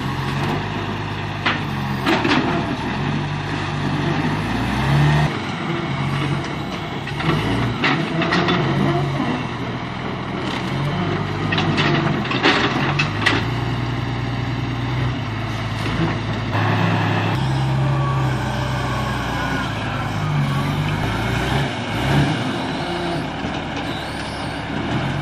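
Heavy diesel machine engine running, its pitch rising and falling as the load changes, with metal clanks and knocks at intervals.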